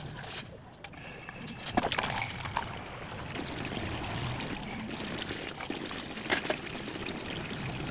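Water trickling and splashing steadily, with a few short knocks.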